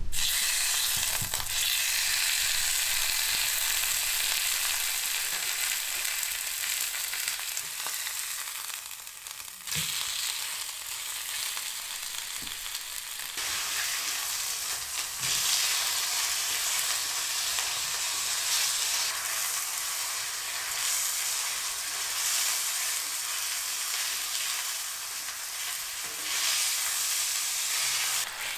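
Entrecote steaks sizzling in hot oil in a pan, starting abruptly as the meat goes in, with a wooden spatula stirring and turning them. The sizzle eases for a moment and picks up again after a knock about ten seconds in.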